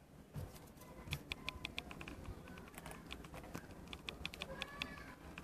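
Dwarf hamster making quick, irregular little clicks and ticks, several a second.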